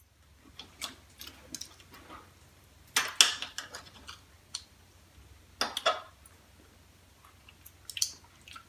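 Knife and fork clinking and scraping against a dinner plate as a steak is cut, in scattered sharp clicks, the loudest cluster a little after three seconds in.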